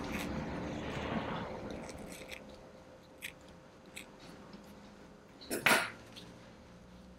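Faint rustling of fur and small clicks as metal forceps pluck hair from a standard poodle puppy's ear canal. A brief, louder noise comes about five and a half seconds in.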